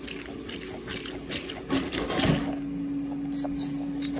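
Wet squishing and a run of short crackles as a pineapple-shaped mesh squishy filled with water beads is squeezed and handled in the hand.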